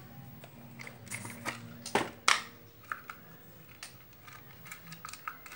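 Small objects handled and set down on a wooden stool top: scattered light clicks and knocks, the loudest two sharp clicks about two seconds in, over a faint steady hum.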